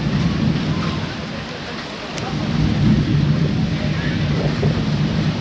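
Thunderstorm: rolling thunder rumbling low and continuously over the hiss of heavy rain, the rumble swelling about halfway through.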